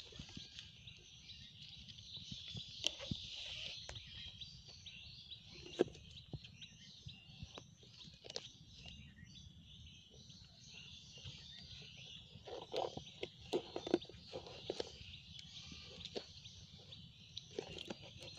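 Rustling and light clicks from hands handling and tying string around a rolled banana-stem sheath, with a denser patch of rustling about two-thirds of the way through. Behind it runs a steady high chirping of birds.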